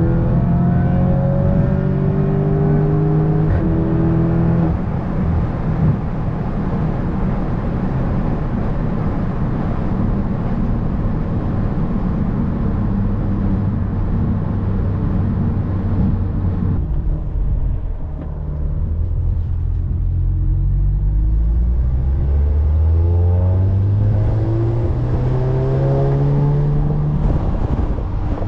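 Catless Audi S3's turbocharged four-cylinder engine and exhaust, heard from inside the cabin, pulling hard with its note climbing in pitch. About two-thirds of the way in the sound falls away sharply as the throttle is lifted, then it builds again in a series of rising pulls.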